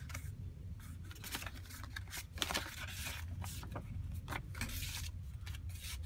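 Coffee-dyed paper and card tags rustling, sliding and scraping as they are handled by hand and tucked into a journal pocket, in irregular short rustles with the sharpest about two and a half seconds in. A steady low hum lies underneath.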